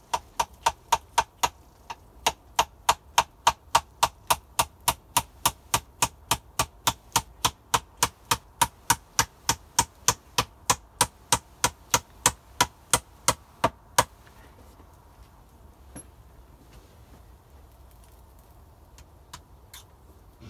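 Hammer driving nails into wooden planks: steady blows, about three a second, each with a short metallic ring, stopping about fourteen seconds in. A few faint knocks follow.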